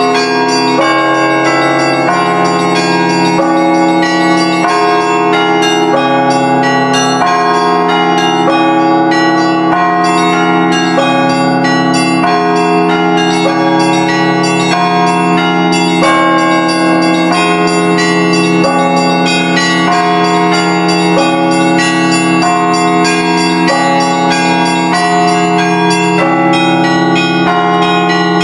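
Russian Orthodox church bells rung together: smaller bells struck rapidly, several times a second, over the steady hum of the larger bells.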